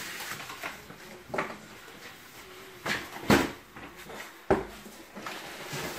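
Packaging being handled: plastic wrapping rustling and a cardboard box being moved, with several knocks, the loudest about three seconds in.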